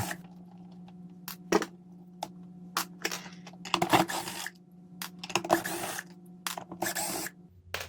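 Objects being handled: scattered clicks and knocks with a few short scraping rustles, over a faint steady hum that stops near the end.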